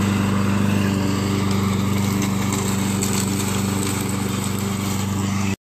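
Walk-behind gas lawn mower engine running steadily at an even speed, cutting off suddenly near the end.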